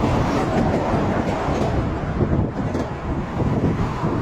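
Wind noise on the microphone and road noise from a moving solar-powered electric tricycle, a steady rough noise.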